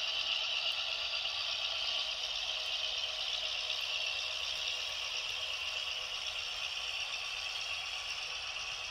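Simulated diesel engine sound from the LokSound 5 sound decoders in two coupled HO-scale WalthersProto GP7 models, played through their small onboard speakers as the locomotives run on the layout. It is a steady, thin, rattly engine drone with no bass, slowly getting a little quieter.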